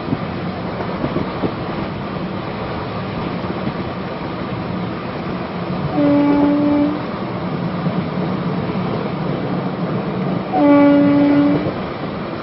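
Steady rumble and rattle of an express train's coaches running at speed, heard from inside a coach. The locomotive's horn sounds twice, about a second each: once midway and once, louder, near the end.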